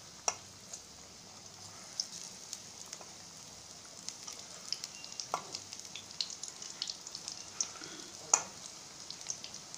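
Besan pakoras deep-frying in hot oil in a kadhai: a steady sizzle with scattered crackles. A few louder clicks stand out, the strongest about five and eight seconds in.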